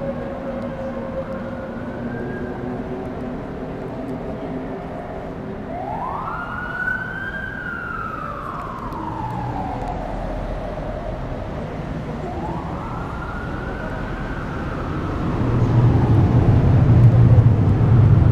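Emergency vehicle siren wailing over city traffic, sweeping slowly up and falling back in pitch, three times in all. A louder low rumble sets in near the end.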